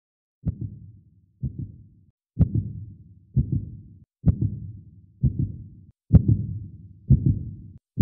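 Heartbeat sound effect: deep thuds about once a second, alternating stronger and weaker beats, growing steadily louder.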